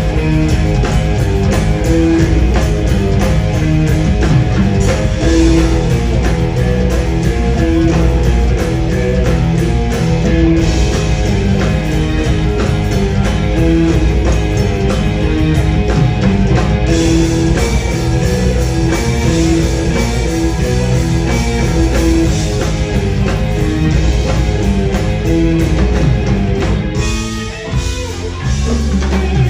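Live progressive rock band playing loudly, with electric guitar over drums and bass, heard from the audience in the concert hall. The sound dips briefly just before the end.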